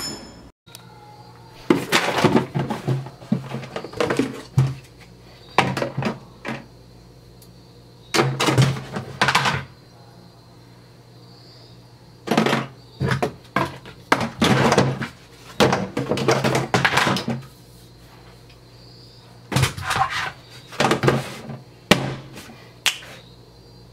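Irregular clattering and thunks of gear being handled and dropped into a plastic storage tub, in bursts with short pauses between them, ending with the plastic lid being put on.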